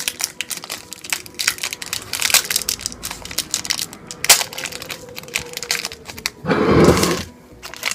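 Plastic wrapper of a flavoured milk drinking straw being handled and opened, crinkling and crackling in many small clicks, with a louder rustle lasting under a second near the end.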